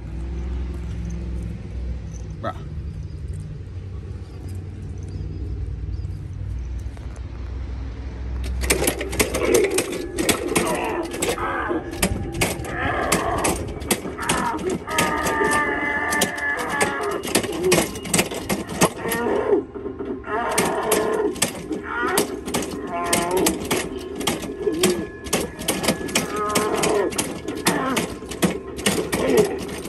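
Lowe's Pneumatic Grandpa animatronic running its routine: at first a low, steady hum, then from about eight seconds in a scary-sounding, drawn-out voice plays over rapid, sharp puffs and clicks from its air-driven movement.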